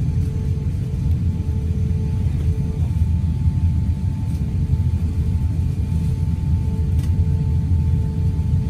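Steady low rumble in the cabin of an Airbus A350-900 taxiing onto the runway, with a faint steady hum above it.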